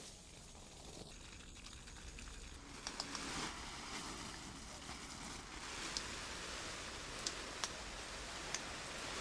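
Water from a garden hose spraying onto vegetable leaves and plastic mulch film: a steady hissing patter that gets louder about three seconds in, with a few sharp ticks scattered through it.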